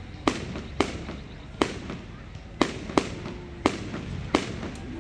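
Fireworks display: aerial shells bursting in sharp bangs, about eight of them at irregular intervals of roughly half a second to a second.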